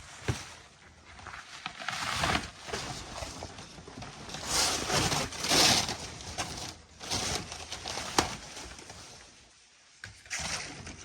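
Packaging being handled and pulled apart, heard as a series of irregular rustling and scraping bursts with a few sharp knocks.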